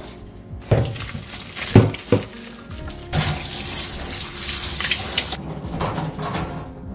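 Water running into a kitchen sink for about two seconds, after a few sharp knocks of kitchenware.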